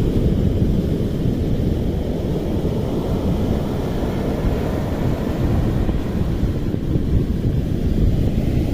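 Wind rumbling on the microphone over the steady rush of sea surf, a loud, even noise with no distinct events.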